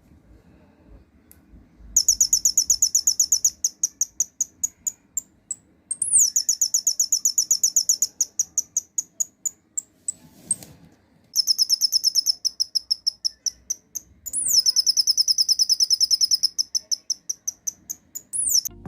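Transistor canary-sound circuit chirping through a small speaker. It gives rapid, evenly repeated high-pitched trills in four runs with short gaps between them, and some runs begin with a quick rising sweep.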